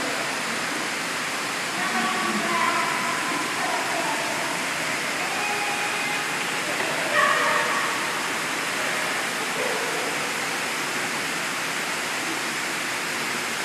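Steady rushing noise of an indoor swimming pool, with water moving as a man wades with children on foam floats. Young children's voices call out now and then, loudest about seven seconds in.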